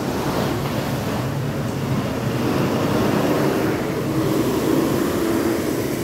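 Steady rushing wind noise on a phone's microphone, with a steady low hum joining about halfway through.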